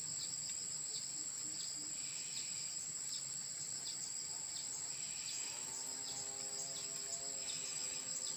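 Steady high-pitched insect chorus with a rapid pulsing chirp running under it. About five and a half seconds in, a steady drone of several held tones comes in beneath the insects.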